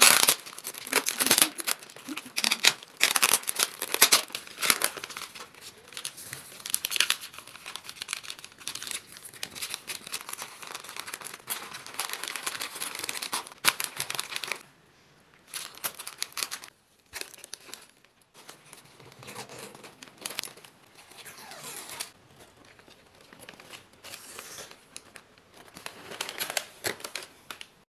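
Wrapping paper crinkling and rustling as it is folded and gathered by hand around a bouquet stem. It is busy and loud through the first half, then softer and in short, separate rustles.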